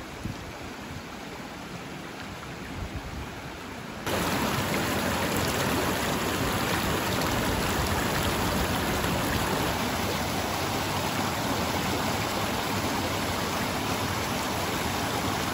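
Small rocky forest creek rushing and splashing over stones, a steady watery hiss that jumps louder and closer about four seconds in.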